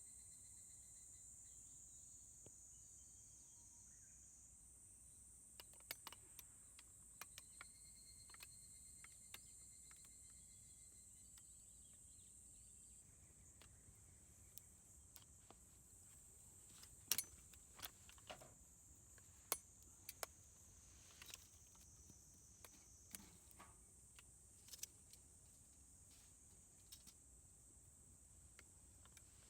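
Faint, steady, high-pitched insect chorus. Scattered light clicks and taps come in from about six seconds, with a few sharper ones near the middle.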